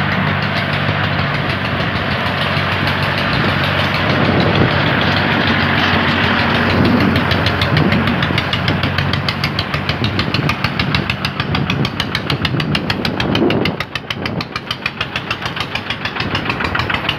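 Engines of a farm tractor and a small open-back farm truck running as they drive. From about halfway through, an even, rapid knocking beat takes over, and near the end the sound turns into a slower, pulsing chug.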